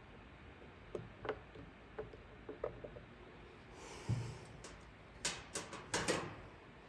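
Handling noises: a few light clicks and taps, then a dull thump about four seconds in and several short scrapes near the end.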